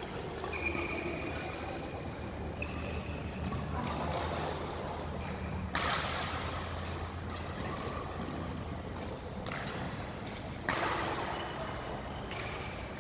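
Badminton rally: several sharp racket strikes on a shuttlecock, with short high shoe squeaks on the court floor between them, ringing in a large hall.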